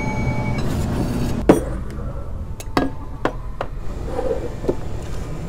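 Ceramic plates knocking and clinking as they are set down on a table, a handful of sharp knocks with the loudest about a second and a half in. The ringing tail of a service bell dies away at the very start.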